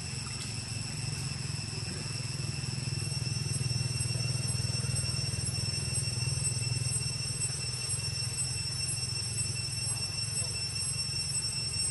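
Steady outdoor background noise: a low rumble that swells a little a couple of seconds in, under steady high-pitched tones.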